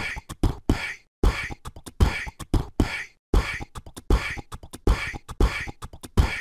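Outro music: a percussion beat of deep kick-like thumps and sharp snare-like hits, repeating in a steady pattern of several hits a second.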